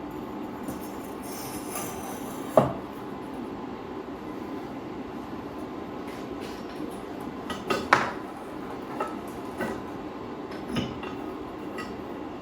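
Metal clanking on metal, sharp about two and a half seconds in and again around eight seconds, then a few lighter knocks, over a steady low rushing from the furnace melting copper.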